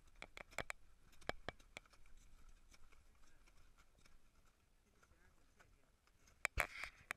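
Crampon footsteps on glacier ice: an irregular run of sharp crunching steps, the loudest pair about six and a half seconds in.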